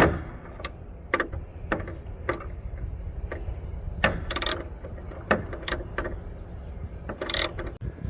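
Socket ratchet clicking in short, irregular bursts as the 7mm screw holding a truck's turn signal housing is backed out, with a steady low rumble underneath.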